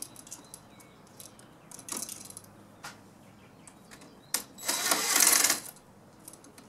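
Cordless drill/driver running for about a second a little past the midpoint, driving a brass terminal screw on a light switch. Light metal clicks and clinks from the switch being handled come before it.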